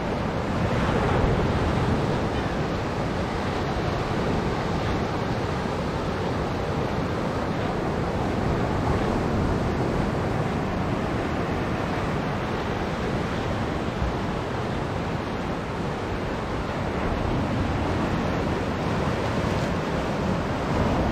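Sea surf washing steadily, with wind blowing on the microphone.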